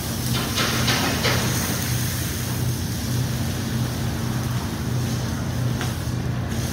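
Hot teppanyaki griddle hissing and sizzling as steam rises off its surface, with a few sharper bursts of hiss in the first second or so. Under it runs the steady hum of the griddle's exhaust hood.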